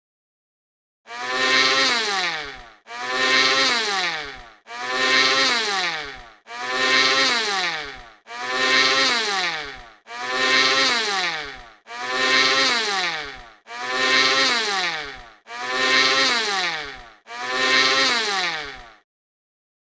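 Electric blender motor run in ten short pulses, back to back, each a little under two seconds long; in each pulse the whine starts loud and falls in pitch as the motor winds down.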